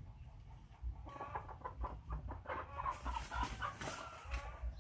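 Chickens clucking in a quick run of repeated calls that builds to its loudest about three seconds in.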